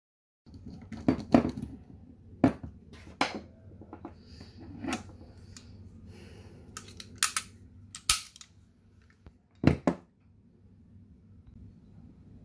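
Parts of a field-stripped Colt 1911 CO2 BB pistol being handled and taken apart on a table: a series of sharp clicks and knocks, the loudest a couple about a second in and another near the end.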